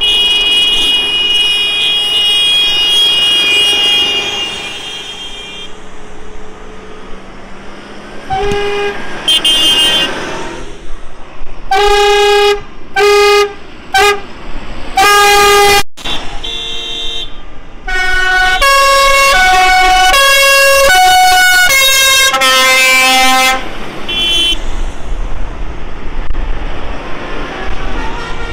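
Decorated tractors driving past with engines running while horns are sounded: a high tone at the start, several short blasts on one pitch around the middle, then a musical horn stepping quickly through a run of different notes like a tune.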